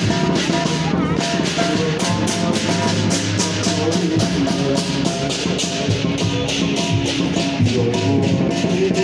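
Band music with a drum kit keeping a steady beat, cymbal strokes repeating evenly under sustained instrument notes, and no singing.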